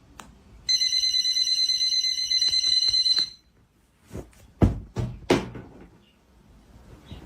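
An alarm beeping rapidly on one high, steady pitch for about two and a half seconds, then stopping. A few knocks and thumps follow about four to five and a half seconds in.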